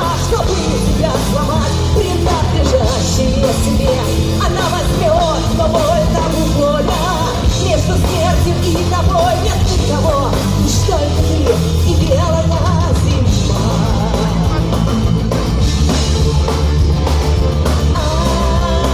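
A folk-rock band playing live, with a singer's voice carrying a wavering melody over a full, steady backing of guitars, bass and drums.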